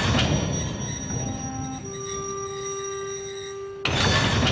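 Train wheels squealing on the rails over the rumble of a rolling train, several steady squeal tones at once, with a fresh surge of noise about four seconds in.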